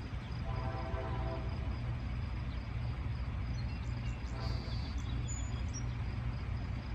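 Diesel locomotive air horn sounding one chord blast of about a second, about half a second in, over a steady low rumble.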